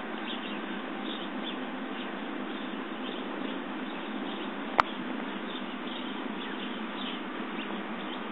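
Steady background hiss with faint, scattered bird chirps, and a single sharp click about five seconds in.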